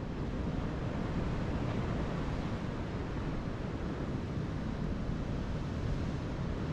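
Steady wind noise on the microphone over the wash of sea surf.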